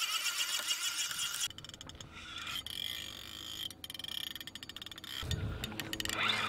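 Spinning reel's drag clicking as a hooked shark pulls line off. A fast, even buzz of clicks for about the first second and a half, then slower, scattered clicks, with a low thump about five seconds in.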